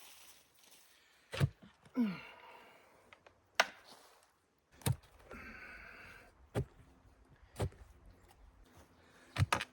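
Hand-digging a post hole: a digging tool strikes the soil in sharp, separate hits every one to two seconds, with heavy breathing and a grunt between the strikes.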